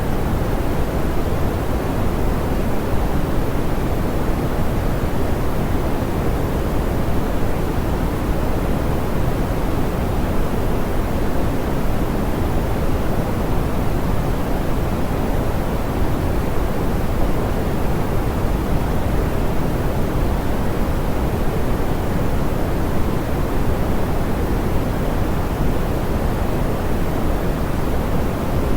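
Soft, smoothed pink noise: a steady, even hiss weighted toward the low end, with no changes.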